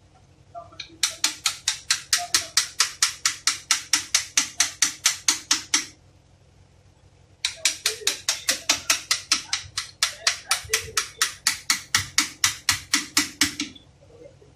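Ratchet wrench clicking in two quick, even runs of about five clicks a second, one of about five seconds and one of about six, with a pause between, as it is worked on a steering rack.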